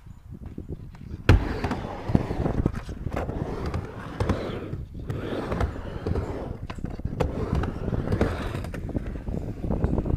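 Skateboard rolling with a steady rumble of the wheels and sharp knocks of the board, the loudest about a second in.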